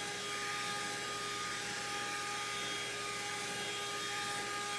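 Cordless handheld vacuum running on its high setting: a steady motor whine over a rush of airflow hiss.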